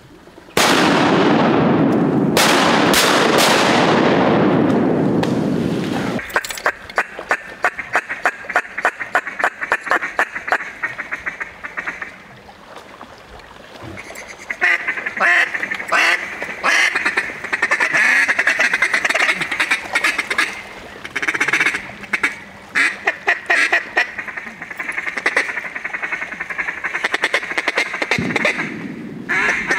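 Mallard duck calls blown to work ducks overhead: a loud, rough blast for the first few seconds, then a fast chattering feeding chuckle, then repeated quacks to the end.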